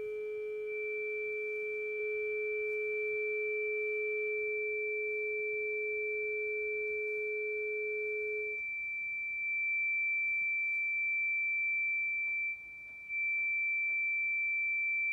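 Two steady sine-wave test tones from function generators, one of about 432 hertz and a higher one of about 2,300 hertz. The lower tone cuts off about eight and a half seconds in, leaving the high tone alone, which drops out for about half a second near the end.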